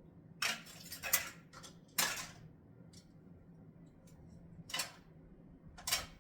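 Sharp plastic clacks and knocks as a kitchen mandoline slicer's top piece is handled and taken off: about five separate clacks at irregular intervals.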